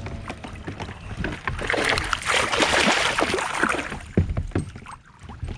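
Water splashing and scattered knocks against a kayak as a hooked bass is fought and brought in alongside. The splashing is loudest about two to four seconds in.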